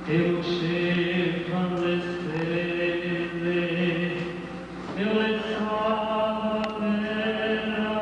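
A man singing into a handheld microphone in long, held notes, his pitch stepping up about five seconds in.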